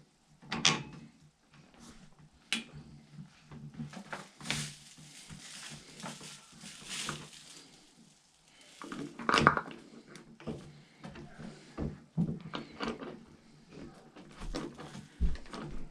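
Scattered knocks, clicks and scraping as mini bike parts are handled while fitting the front wheel and its axle bolt, with the loudest knocks about half a second in and about nine seconds in.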